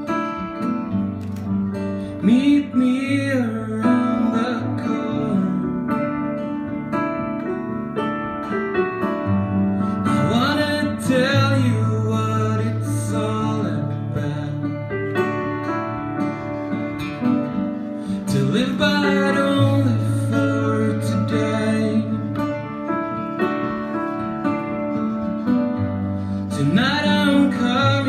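A song played live: an acoustic guitar strummed, with a Nord Stage keyboard on a piano sound playing chords and long low bass notes, and a man singing several phrases over them.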